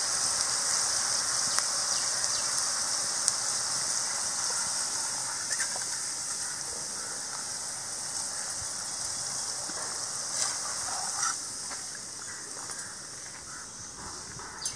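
Cauliflower pieces deep-frying in hot oil in a cast-iron kadai: a steady sizzle that slowly fades as the fried pieces are lifted out. A few light clinks of the metal skimmer against the pan.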